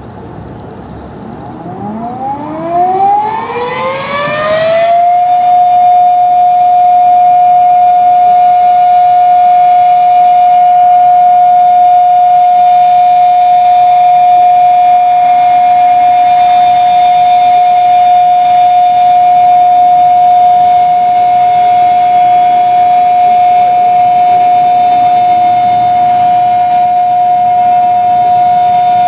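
Modified Erick electromechanical outdoor warning siren sounding its noon blast: it winds up in rising pitch over about three seconds, then holds one steady, loud tone for the rest of the time.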